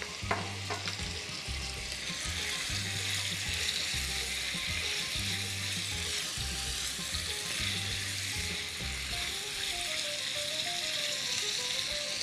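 Finely chopped onion frying in oil in a pan: a steady sizzle, with a couple of knocks from the spatula in the first second.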